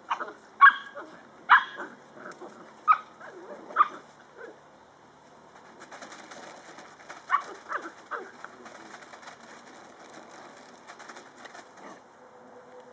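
Drentsche Patrijshond puppies yipping and barking at play: a run of short, high yips over the first four seconds, then a few more about seven seconds in.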